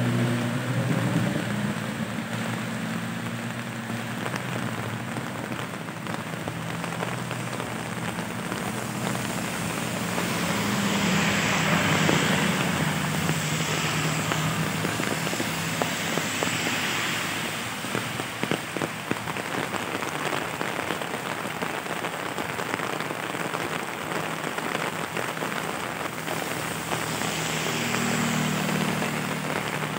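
Steady rain falling on pavement and a wet road, with vehicles now and then passing on the wet road: engine hum and tyre hiss. The loudest pass swells about a third of the way in, and another comes near the end.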